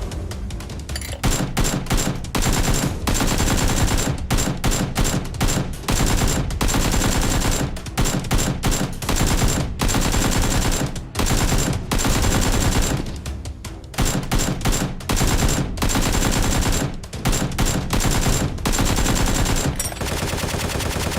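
Rapid bursts of automatic gunfire, a gunshot sound effect for a Nerf gun battle, coming in runs of one to two seconds with short gaps between them.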